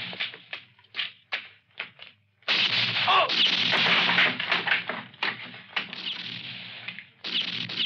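Film gunfight sound effects: a quick string of sharp gunshots, then louder shots with long ringing tails about two and a half seconds in and again near the end.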